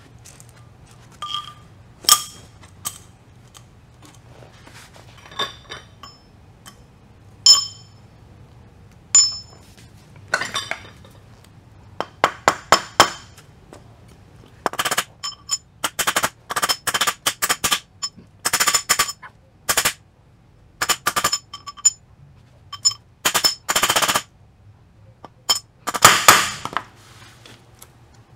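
Scattered metal clinks, then from about twelve seconds in, bursts of rapid, sharp metal-on-metal taps as a new tapered roller bearing is tapped down onto a ZF S5-42 manual transmission input shaft.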